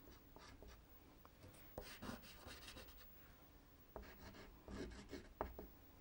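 Faint scratchy strokes of soft pastel being drawn and rubbed over paper, with a few short, sharper ticks.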